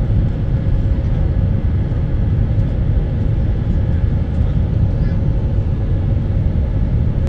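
Steady roar of an Airbus A319-132's IAE V2500 turbofan engines and rushing airflow, heard inside the cabin from a window seat beside the wing engine, with a faint steady hum running through it.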